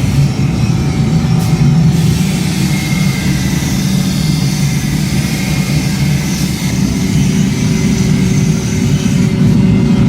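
A running machine: a steady, loud low rumble with no distinct strikes.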